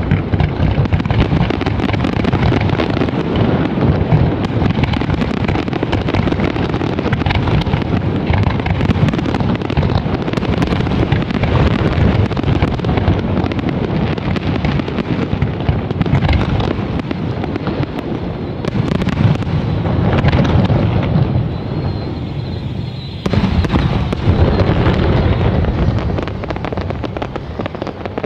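Aerial fireworks display: a dense, continuous barrage of shell bursts and crackle, the closing volley of the show. It eases briefly near the end, then comes one last flurry that dies away.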